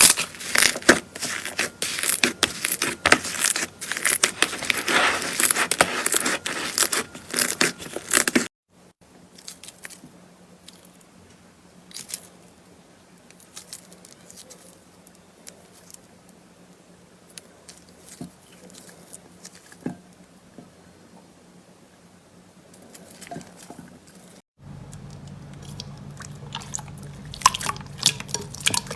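Slime being squeezed and poked by hand, with dense crackling and popping for the first eight seconds or so. The popping then turns sparse and quieter, and dense crackling returns near the end.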